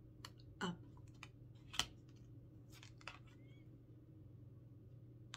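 Oracle cards being handled and shuffled: a scattering of light clicks and snaps, the sharpest about two seconds in, over a low steady hum.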